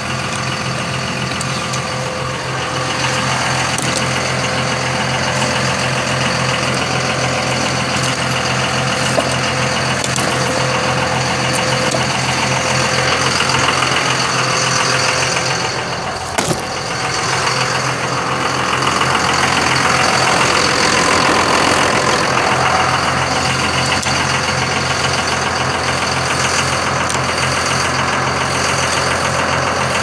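Vehicle engine idling steadily close by, a constant pulsing hum. About halfway through there is a single thump.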